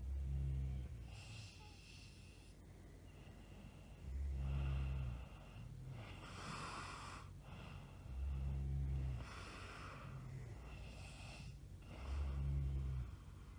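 A woman snoring in her sleep: four deep, loud snores about four seconds apart, with breathy exhales in between.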